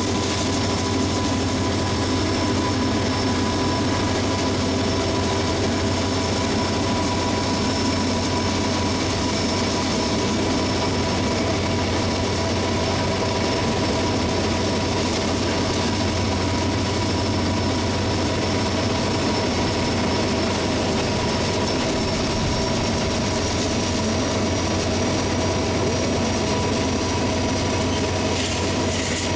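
Steady running noise of a moving freight train's diesel locomotive, heard from a vehicle pacing alongside it: a constant low drone with several steady whining tones over an even rush of road and wheel noise.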